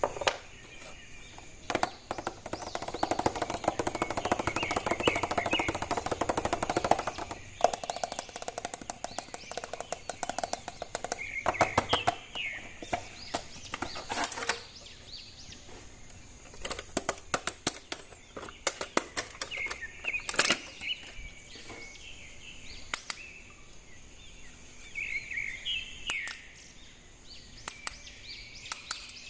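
Plastic action-figure toy parts and packaging being handled, with sharp clicks throughout and a stretch of rustling in the first several seconds. Birds chirp now and then in the background.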